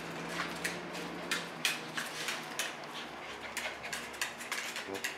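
Dogs' claws clicking and scrabbling on a tile floor in short, irregular taps, several a second, over a faint steady hum.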